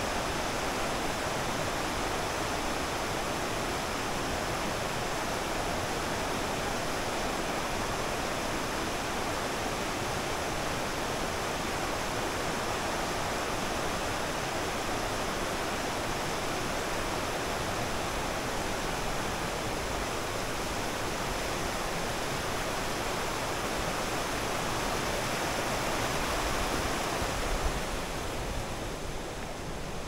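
Stream of rushing, cascading water, a steady rush that grows a little quieter near the end.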